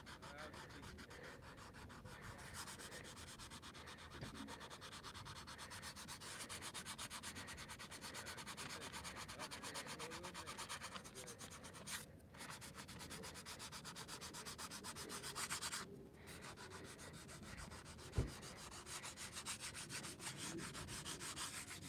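Fingers rubbing over a spray-painted canvas and its stencil, wiping off orange overspray: a faint, steady scratchy rubbing that breaks off briefly twice, about halfway through and again a few seconds later.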